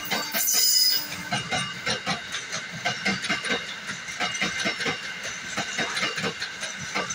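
Empty container flat wagons of a goods train rolling past, wheels knocking and clattering over the rail joints in a dense, irregular rhythm. A brief high squeal comes about half a second in.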